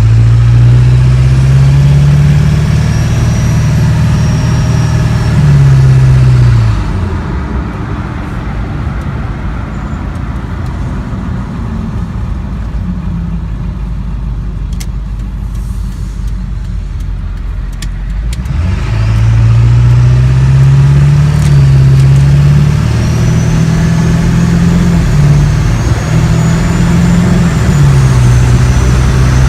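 7.3-litre Powerstroke turbo-diesel V8 heard inside the cab through a 4-inch Diamond Eye exhaust with muffler, pulling under acceleration with its pitch rising. About six seconds in it drops back and runs quieter for about ten seconds, then pulls hard again with several steps in pitch as the transmission shifts, a faint high whistle riding along.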